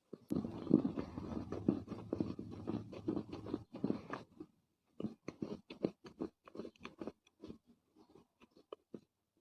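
Soft crunching of dry Chinese loess: a dense run of crunches for the first three or so seconds, then scattered small crackles.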